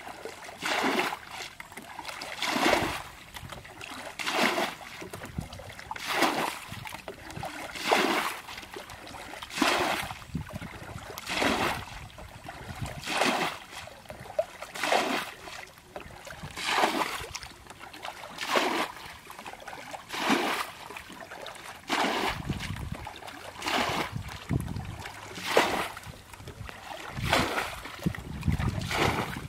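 Water being bailed from a shallow ditch with a plastic bucket: a scoop and a splash of thrown-out water about once every two seconds, in a steady rhythm.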